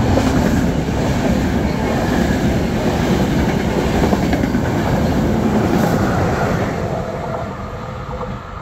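A passenger train's coaches passing at speed on the near track, a steady loud rush of wheels on rail. It dies away over the last couple of seconds as the tail of the train goes by.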